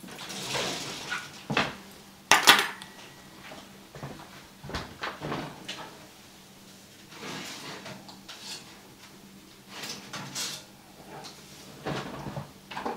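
Kitchen clatter of metal forks clinking as they are taken from a cutlery drawer, then the oven door being opened and a foil-lined baking pan drawn out. A series of separate sharp clinks and knocks with quieter rustling between, the loudest about two and a half seconds in.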